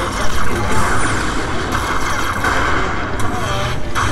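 Steady, loud din of a busy casino slot floor: machine noise and background hubbub around a slot machine as its bonus win is totalled.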